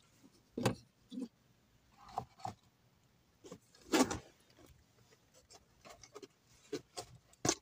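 Close-up mouth sounds of a person eating a breakfast sandwich: scattered short wet smacks and clicks while chewing, the loudest about four seconds in.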